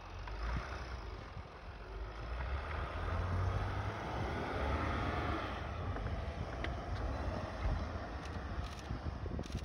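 Mercedes X 350d's V6 turbodiesel pulling under load as the pickup climbs a snowy slope with its rear differential locked, a steady low rumble that gets louder about three seconds in. Wind on the microphone is mixed in.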